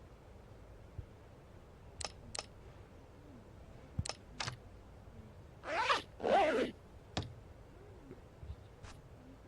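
Two quick zipper pulls a little past the middle, with scattered light clicks and taps of handling before and after.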